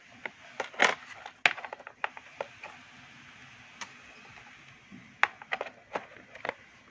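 Plastic compass box being handled: a string of sharp clicks and knocks as its lid and trays are moved and set down, in one cluster about a second in and another near the end.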